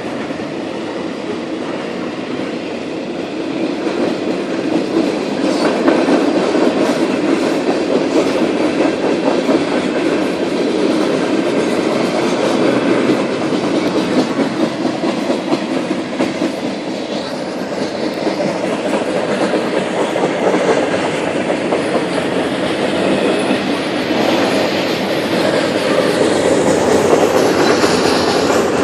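Freight train passing, its steel wheels rumbling steadily and clacking over the rail joints without a break.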